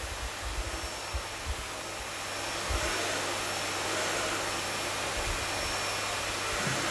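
Miele vacuum cleaner running steadily, a hissing rush of air with a thin high motor whine, with a few low thumps scattered through.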